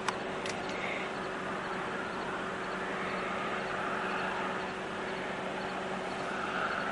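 Storm wind rushing steadily across the microphone, swelling a little about three seconds in and again near the end, over a constant low hum. A sharp click sounds just after the start.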